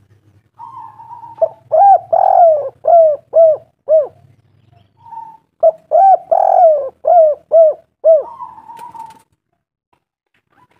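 Spotted dove (tekukur) singing its cooing song: two phrases about four seconds apart, each a quick run of six or seven arched coos. It is a recording played as a lure call to set other doves singing.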